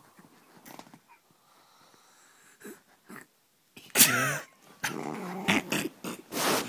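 A few faint rustles, then about four seconds in a dog growls and barks loudly, the noise going on to the end.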